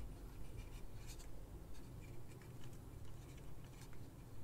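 Faint rubbing and small scattered clicks of hands handling plastic figure parts as a cape piece is worked onto a scale figure.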